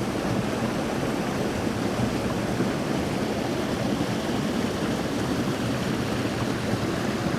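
Steady rush of creek water pouring over a waterfall into a pool.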